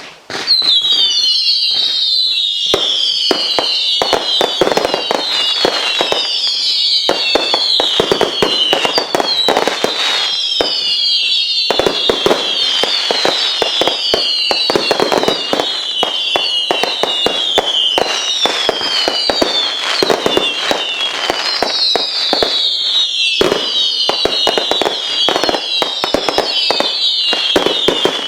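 Firework barrage cakes firing nonstop as a finale. Overlapping shrill whistles each fall in pitch over a second or two, over a dense run of cracks and bangs. It all starts abruptly about half a second in.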